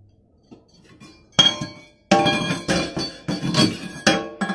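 A small metal cup clinking and clanging against a stainless steel sink as a cat paws at it: about eight sharp, ringing knocks, starting a bit over a second in and coming faster in the second half.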